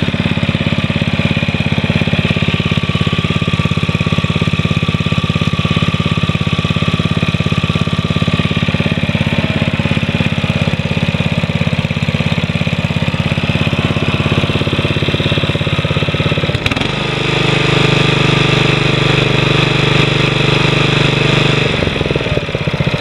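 Honda HRM215 Harmony lawn mower's single-cylinder four-stroke engine idling smoothly on a cold start in freezing weather. About seventeen seconds in it speeds up to a higher, steadier note for some five seconds, then drops back to idle.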